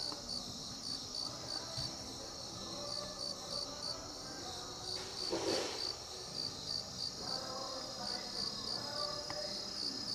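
Insects chirping in a steady, even rhythm, about three high chirps a second over a continuous high buzz. A brief rush of noise comes about halfway through.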